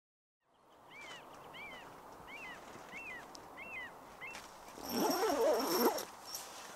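A small bird gives a quick high two-part chirp six times, about every 0.7 s. Then, about five seconds in, a black grouse's bubbling, wavering coo swells up loud for about a second over faint marsh ambience.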